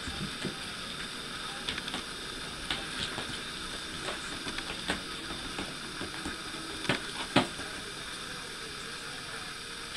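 Scattered soft taps and knocks from a cat and a person playing with a small toy ball on carpet, over a steady hiss. The two loudest knocks come about seven seconds in, half a second apart.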